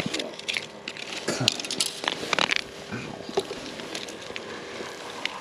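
Handling noise: scattered small clicks and crackles over a faint steady hum.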